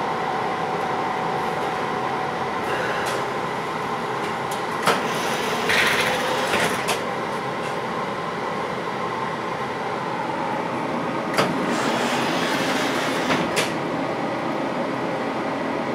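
Düsseldorf Stadtbahn light-rail car heard from inside while running: a steady rolling noise with a faint steady whine, and a few sharp clacks of the wheels over rail joints, about five, seven, eleven and thirteen seconds in. There is a brief higher hiss near six seconds.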